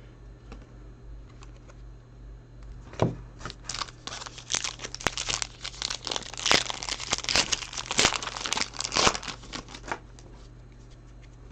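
A sealed trading-card pack's wrapper being torn open and crinkled by hand: a single tap about three seconds in, then several seconds of rapid crackling and tearing that stops about ten seconds in.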